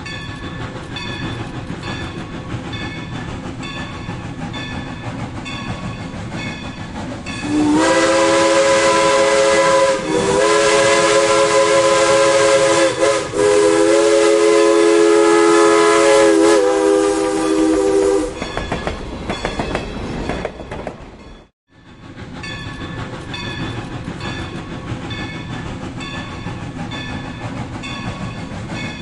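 Steam locomotive running with a steady, rhythmic chuffing and clatter. About seven seconds in, its whistle blows loudly for about ten seconds, briefly dipping twice. Afterwards the rhythmic running sound resumes, cutting out for an instant about two-thirds of the way through.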